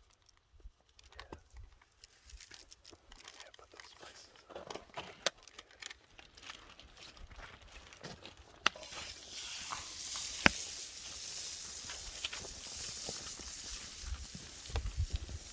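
Wood fire crackling, with a few sharp pops. About halfway in, a steady loud hiss joins in and carries on.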